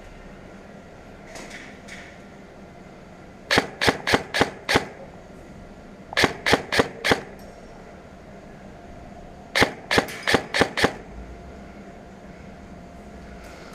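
Airsoft gun firing three quick strings of single shots, five or six shots each at about four a second, with pauses of a second or two between strings.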